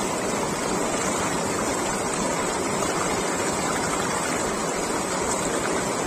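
Fast mountain river rushing over rocks: a steady, even noise of running water.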